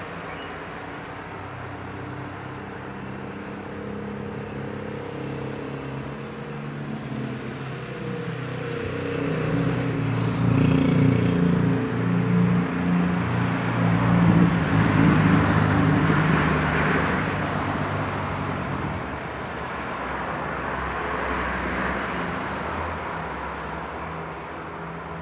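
Engine noise, a low hum with hiss, that swells to its loudest a little past halfway and then eases off, with a smaller swell near the end.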